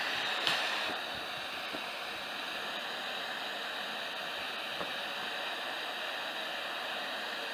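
Hot air rework gun blowing a steady hiss of air while preheating a PS4 circuit board, with a faint steady high whine and a light click about half a second in.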